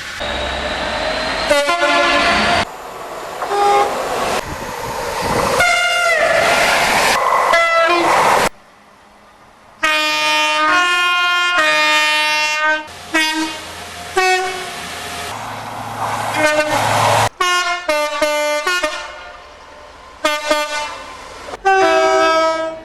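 Two-tone horns of British diesel trains, one sounding after another, each stepping between a high and a low note, over the noise of the passing trains. There is a short break about a third of the way through.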